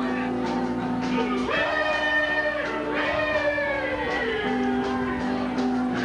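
Live band playing a song: singing over a keyboard and drums, with long held notes underneath.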